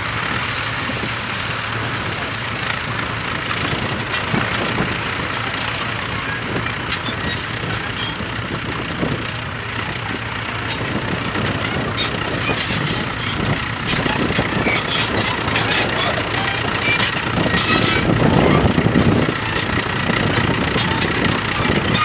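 Fordson Major County crawler tractor's engine running steadily under load while pulling a plough. It grows louder over the last third as the crawler comes closer.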